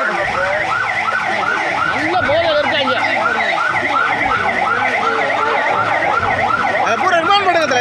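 Emergency vehicle siren on a fast yelp, its pitch rising and falling about four times a second.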